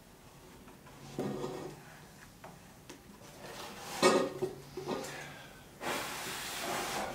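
Knocks and light clatter of model panels and a super glue pack being handled, then, about six seconds in, a steady breathy hiss of someone blowing onto freshly applied thin super glue to work it into a joint.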